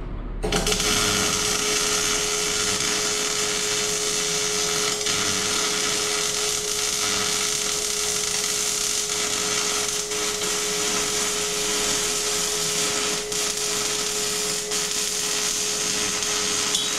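Wire-feed (MIG) welder laying one long continuous bead on a custom turbo dump pipe: a steady crackling sizzle of the arc over a constant hum. It starts about half a second in and cuts off suddenly at the end as the welder stops.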